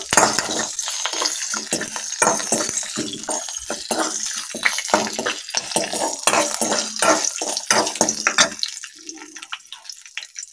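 Hot oil sizzling in a metal kadai as dried red chillies fry with mustard seeds, urad dal and curry leaves, with a steel spoon scraping and clinking against the pan as it stirs. The stirring stops about eight and a half seconds in and the sizzle fades to a faint hiss.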